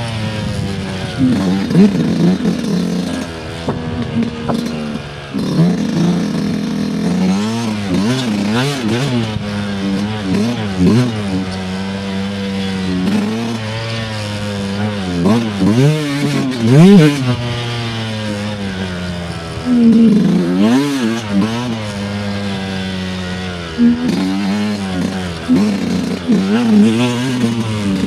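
Dirt bike engine being ridden on a trail, revving up and falling back again and again as the throttle is opened and closed.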